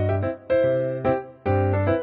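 Background music: a keyboard tune with chords struck about twice a second.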